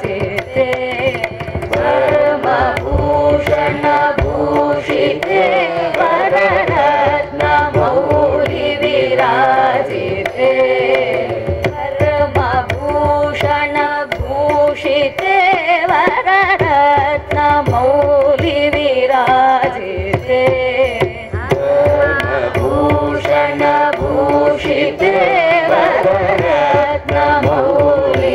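Women's voices singing a Carnatic devotional song, accompanied by mridangam strokes and a harmonium's held notes.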